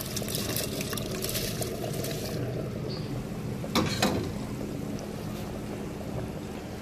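Beef stock boiling in a cooking pot, a steady bubbling with light crackle. About four seconds in, two short knocks as the rice goes into the boiling stock.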